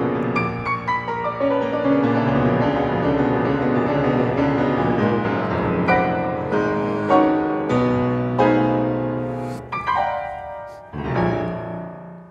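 Concert grand piano playing solo: sustained chords, then a few separately struck chords, and a final chord that rings out and dies away at the close of the piece.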